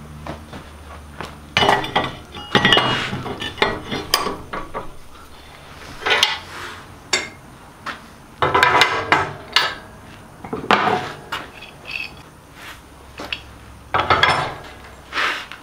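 Steel parts of a manual tube bender clanking and clinking as they are handled, fitted into a bench vise and assembled: several irregular bursts of metal knocks and rattles.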